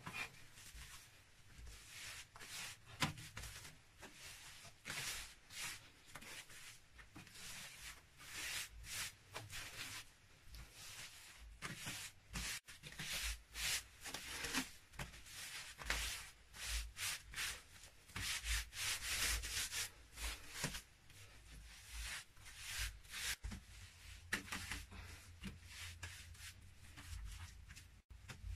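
Loose, dry earth being scraped and scooped by hand into a bucket, in irregular rasping strokes.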